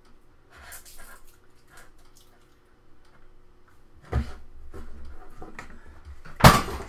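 Knocking and rustling of handling at a desk, then a loud crash near the end as a light falls over.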